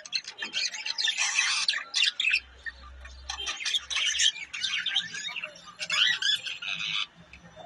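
Budgerigars chattering: a dense, continuous stream of overlapping chirps and squawks from several birds.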